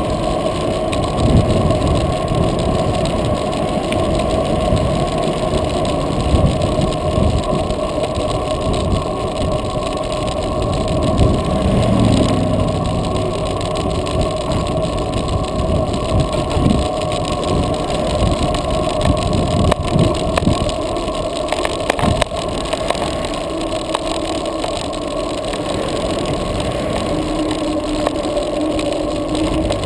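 Wind buffeting the microphone of a handlebar-mounted camera on a bicycle ridden into a strong wind: a loud, steady rumble that swells and eases with the gusts, with the bike's ride noise beneath it.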